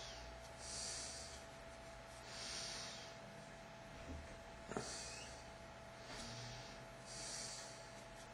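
A person breathing slowly and evenly close to the microphone, with a soft hiss every second and a half to two seconds, some carrying a faint falling whistle. There is one small click about halfway through and a faint steady hum underneath.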